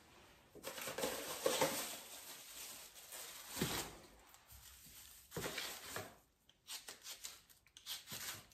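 Vegetable peeler scraping the skin off a raw potato in a series of short, uneven strokes.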